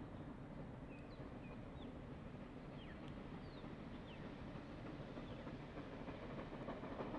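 Distant steam train approaching: a faint low rumble that grows a little louder near the end. Small birds chirp short calls throughout.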